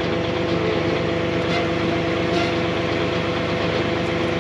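Diesel engine of a Brute Force USA 18-24HD firewood processor running steadily, a constant drone with several steady tones.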